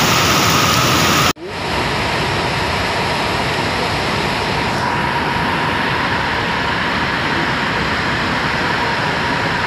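Flash flood water rushing: a muddy torrent running as a steady, dense, loud noise, with a brief break about a second in where the footage cuts.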